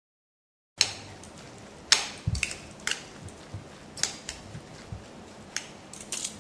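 After a brief silent gap, scattered clicks and knocks of kitchen utensils and dishes being handled on a work surface, the sharpest about two seconds in, followed by a low thud.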